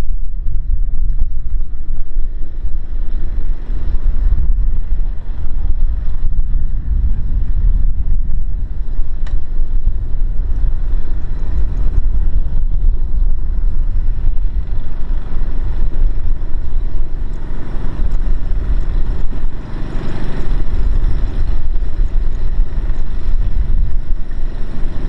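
Heavy machine's engine running steadily with a low rumble, swelling louder for a few seconds about three-quarters of the way through.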